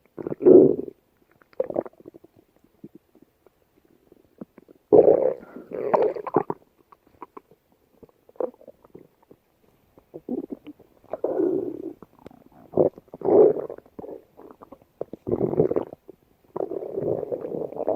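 A woman's stomach growling and gurgling in irregular bursts with short quiet gaps between them, some brief, some drawn out over a second or more.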